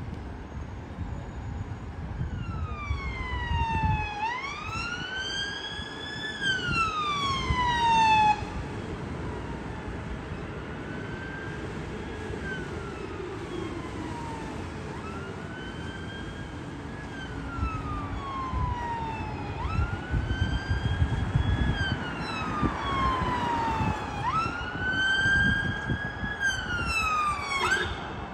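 Emergency vehicle siren wailing, its pitch rising and falling slowly every few seconds, over low traffic rumble. It is loud at first, fainter in the middle and loud again later, switching to a quick fast sweep near the end.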